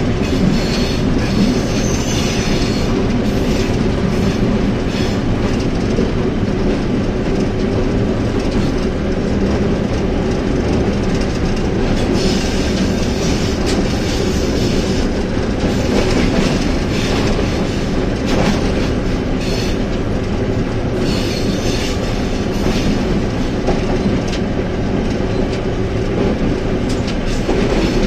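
Diesel-electric locomotive running along the line, heard from its cab: a steady engine drone with the wheels clicking over rail joints, and a few brief higher-pitched passages.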